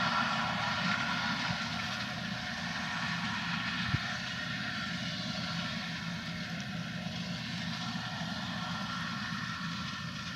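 Diesel engine of large farm machinery running steadily and gradually getting quieter, with a single brief click about four seconds in.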